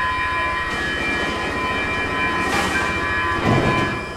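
Stockholm metro train's steel wheels squealing on the rails: a steady high-pitched squeal of several tones at once that stops shortly before the end. A short hiss cuts in about two and a half seconds in, and a louder rush of rolling noise follows near the end.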